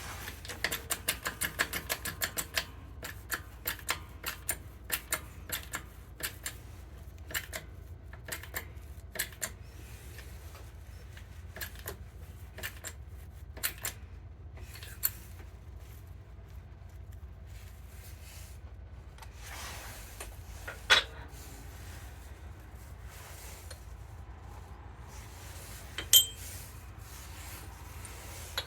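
Small metal parts and tools clicking and tapping while an oil seal is set up at a workshop press for fitting into a lathe headstock bearing housing. There is a quick run of light ticks at the start, then scattered clicks, and two sharper metallic knocks, one about two-thirds through and one near the end.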